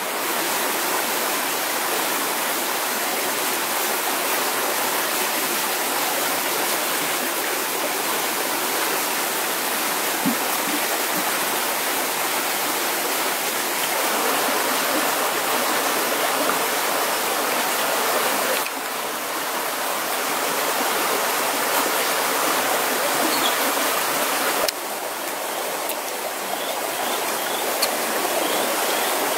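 Stream water running steadily over rocks, a constant rushing wash whose level steps up or down a little a few times. A few faint short chirps near the end.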